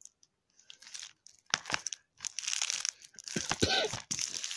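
Plastic shrink wrap on Blu-ray cases crinkling as the cases are handled and set down, with a few light clacks of the plastic cases. It starts about a second and a half in and keeps going.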